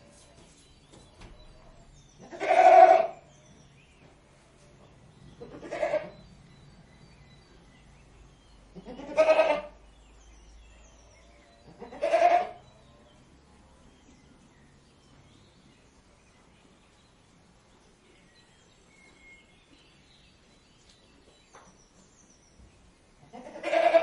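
Goat bleating: four separate bleats about three seconds apart, then a long pause before a fifth bleat near the end.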